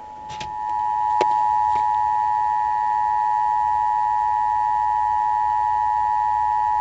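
Emergency Alert System attention signal: the steady two-tone alarm of about 853 Hz and 960 Hz sounded together. It grows louder through the first second, holds even, and cuts off abruptly at the end. A few faint clicks fall within the first two seconds.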